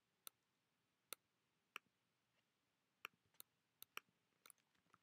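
Faint, irregular computer mouse clicks, about nine in five seconds, from clicking through a menu and a dialog box; otherwise near silence.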